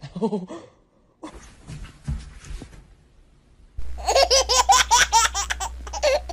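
A person laughing hard in rapid, high-pitched bursts from about four seconds in, after a few brief short sounds near the start.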